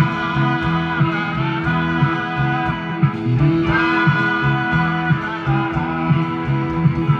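A live band playing rock music, with guitar over a steady, repeating bass line.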